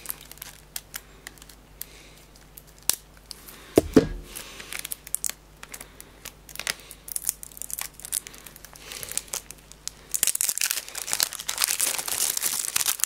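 Plastic wrapping being torn and peeled off an album by hand: scattered crinkles and clicks, a dull thump about four seconds in, then steady, louder crinkling of the plastic over the last three seconds.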